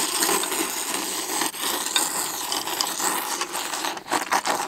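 Ramen noodles being slurped in one long, continuous noisy pull that lasts several seconds and stops abruptly at the end.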